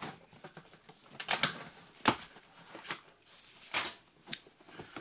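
A cardboard shipping box being cut and opened: packing tape slit and cardboard flaps handled, giving a few short scraping rips, the sharpest about two seconds in.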